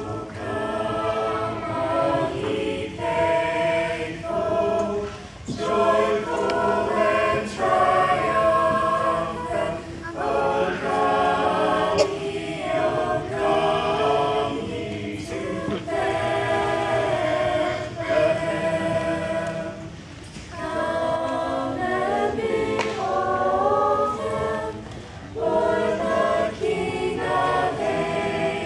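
Small mixed choir of teenage girls and boys singing together, phrase after phrase with brief breaks between them.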